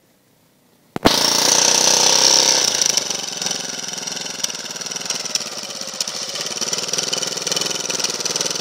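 Engine of a Leshy 2x2M two-wheel-drive motorcycle, which cuts in suddenly about a second in and runs loud and steady. After a couple of seconds it drops a little lower as the bike moves off through the snow.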